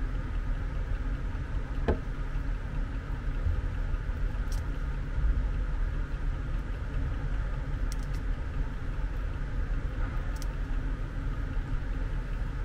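Steady low background hum and rumble, with one faint click about two seconds in.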